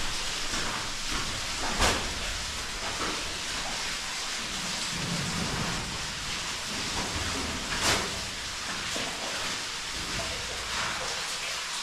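Steady rushing hiss with two sharp knocks, one about two seconds in and one near eight seconds.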